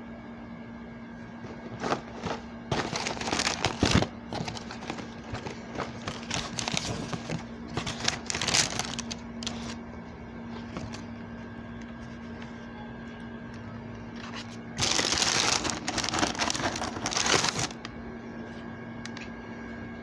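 Crinkling of snack packaging being handled, in three noisy bursts with scattered rustles and clicks between them, over a steady faint electrical hum.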